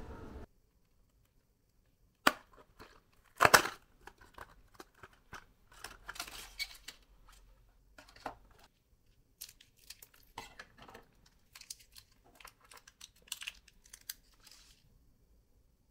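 Packaging being handled and torn open close to the microphone: a sharp snap about two seconds in and a louder tear a second later, then scattered crinkling, rustling and small clicks of paper or plastic wrapping.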